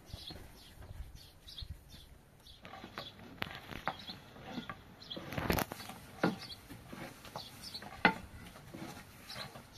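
Birds chirping in short repeated calls, with scattered knocks and clatters; the loudest knock comes about halfway through.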